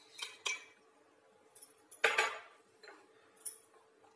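Ice cubes dropped into a tall drinking glass, knocking and clinking against the glass a few times, the loudest knock about two seconds in.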